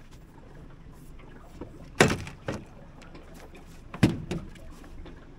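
Two sharp knocks with a short ring, about two seconds apart, as a boat hook and crab-pot line are worked against the metal bow of a small boat while the pot's line is hooked and hauled in by hand. A smaller knock follows just after the first.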